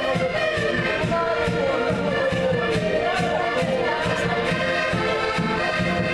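Several concertinas playing a Portuguese folk tune together in the street, held chords over an even beat in the bass, with voices singing along.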